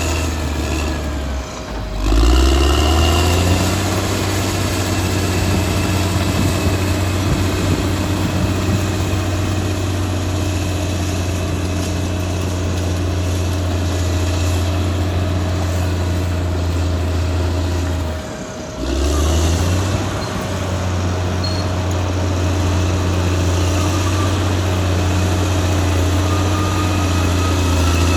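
Caterpillar D6R XL bulldozer's diesel engine running steadily under working load. It dips briefly twice, and each time the pitch rises back up.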